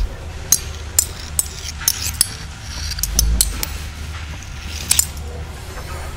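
Sound-designed mechanical foley: about a dozen sharp metallic clicks and clinks scattered irregularly over a steady low hum, with a low rumbling swell about three seconds in.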